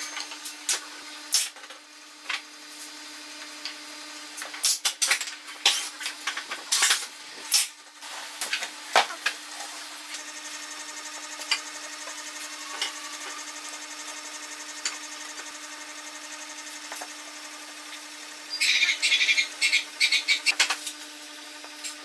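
Small wooden sticks and birdhouse parts clicking and knocking against each other and the workbench as they are handled and fitted by hand, with a quick run of rapid wooden taps near the end. A steady low hum runs underneath.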